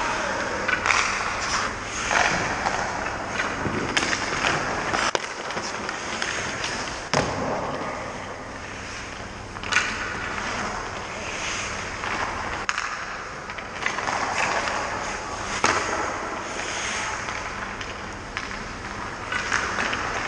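Hockey skates scraping and carving on rink ice, with several sharp cracks of hockey sticks and pucks striking.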